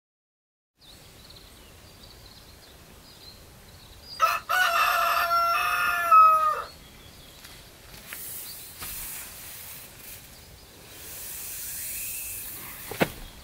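A rooster crowing once: a single long call of about two and a half seconds, dropping in pitch at the end. A sharp knock comes near the end.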